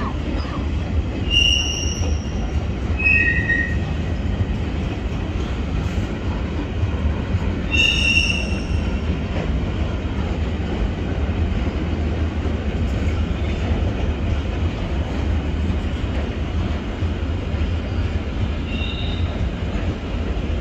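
A train rolling past with a steady low rumble, its wheels squealing in short, high-pitched squeals a handful of times: about a second in, around three seconds, around eight seconds and again near the end.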